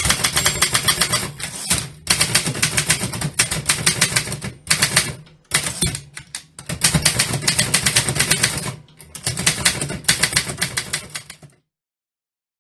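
Typewriter being typed on at speed, rapid key strikes in runs broken by short pauses, stopping abruptly near the end.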